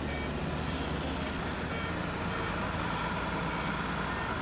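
A steady, even rumble of mechanical noise, like vehicle or engine noise, with a low hum under it.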